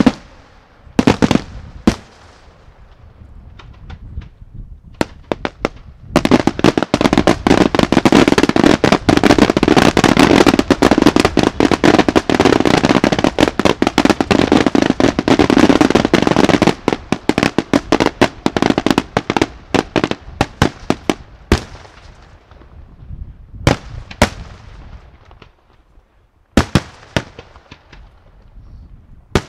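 Daytime aerial fireworks shells from Senatore Fireworks bursting in the sky. A few sharp single bangs come first, then about ten seconds of dense, rapid crackling reports, then scattered bangs again near the end.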